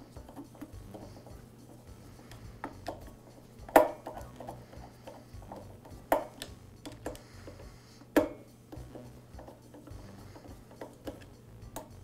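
Hand screwdriver tightening screws into the insulator on a Husqvarna backpack blower's engine: a string of small ticks and clicks from the tool and screws, with three sharper clicks about two seconds apart, over a faint steady low hum.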